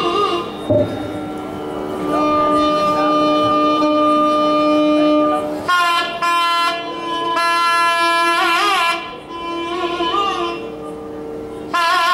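Nadaswaram playing a Carnatic piece with violin accompaniment: a long held note, then from about six seconds in quick, wavering ornamented phrases.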